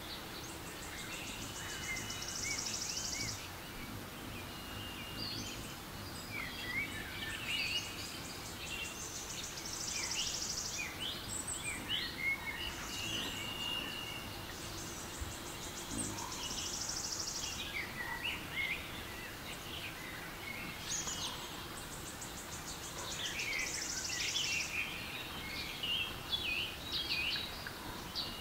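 Forest ambience from a relaxation-sounds app: many songbirds chirping and whistling over a steady low hiss. A pulsing insect trill of two to three seconds comes back about every six or seven seconds.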